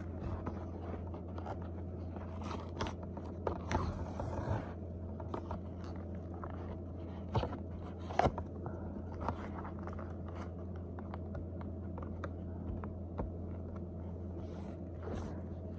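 Plastic-and-cardboard blister pack being handled and pried at by hand, giving scattered crinkles, scrapes and clicks, with a brief longer crinkle about four seconds in. A steady low hum runs underneath.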